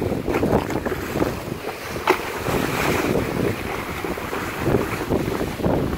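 Wind-driven salt-water waves at king tide surging against a concrete bulkhead and washing over its steps, with gusting wind buffeting the microphone. There is a sharp crack about two seconds in.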